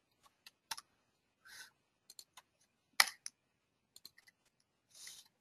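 Computer keyboard keys and mouse buttons clicking irregularly: about a dozen sharp clicks, the loudest about three seconds in, with two short soft hisses between them.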